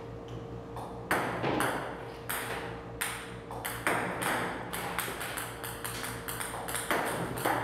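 A series of ringing pings, irregularly about one to two a second, each fading out, over a steady low hum.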